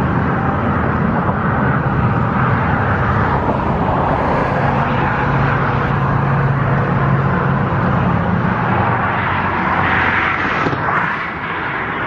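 Steady road traffic rushing past close by, with a vehicle's engine drone that swells through the middle and then eases off near the end.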